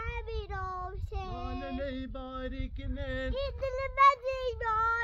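A young child singing a slow tune in long held notes. A second, lower voice holds notes with it for about two seconds, over a low wind rumble.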